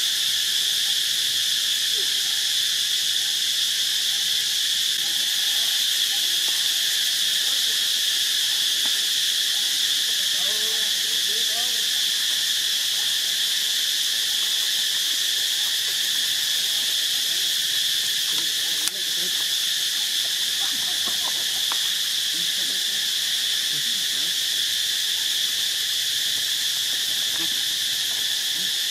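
A steady, high-pitched insect chorus drones without pause. Faint short calls sit underneath it, about a third and again two thirds of the way in.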